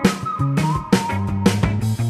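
Background music: a sliding lead melody over a stepping bass line and drum hits.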